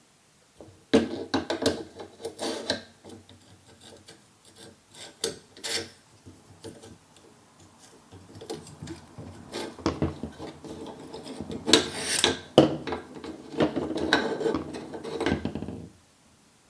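AR-15 bolt carrier group and charging handle being pushed into the upper receiver by hand: irregular metal scraping, rubbing and clicks as the parts are worked back and forth without seating, with a busy stretch about a second in and another near the end.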